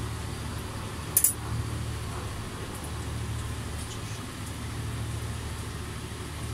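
A steady low mechanical hum throughout, with one short sharp clink about a second in.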